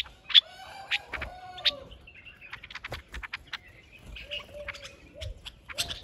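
White-eared bulbuls chirping in short, sharp, irregular notes while feeding, the loudest few in the first two seconds. A lower drawn-out call, from a chicken in the background, sounds about half a second in and again near the end.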